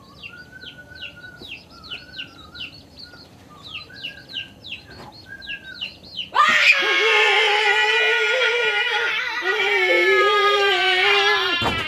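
Faint, quick high chirps repeat for the first half. About six seconds in comes a loud, high-pitched human scream, held with a wavering pitch for about five seconds, and it cuts off abruptly near the end.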